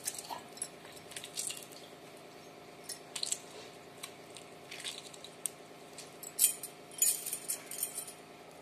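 A lemon half squeezed by hand into a water-filled copper bottle: scattered short wet sounds and light clinks against the metal rim, over a faint steady hum.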